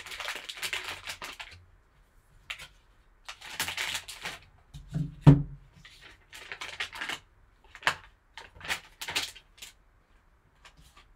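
Foil wrapper of a trading-card pack crinkling in short bursts as it is handled and the cards are pulled out, with one sharp thump about five seconds in, the loudest sound.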